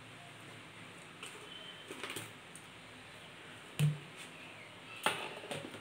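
Mustard-and-green-chilli paste simmering in mustard oil in a kadai: a faint steady hiss with scattered sharp pops and clicks. The loudest is a short knock about two-thirds of the way in, with another near the end.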